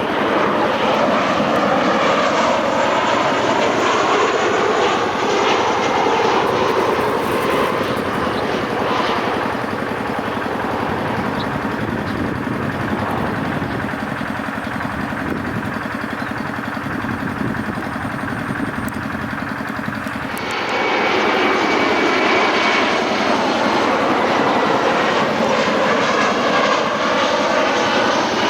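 Jet airliner engines passing low overhead on landing approach, a loud steady jet noise with slowly sweeping rising and falling tones. It eases somewhat in the middle and jumps abruptly back to full loudness about twenty seconds in.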